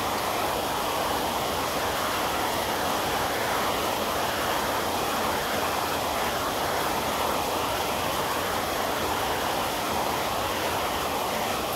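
Steady rain, an even rush of noise that holds at one level without breaks.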